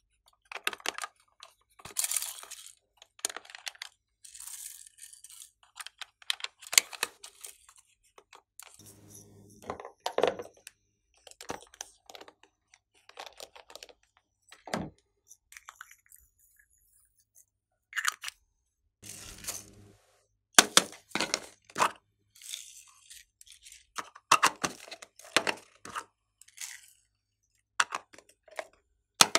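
Hands handling small plastic clay containers and a glitter jar: an irregular run of short clicks, crackles and taps of plastic, with brief pauses between them.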